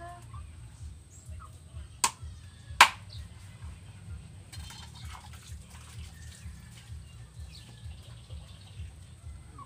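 Two sharp chops of a kitchen knife through fish onto a wooden cutting board, under a second apart, with faint bird chirps and a low steady rumble behind them.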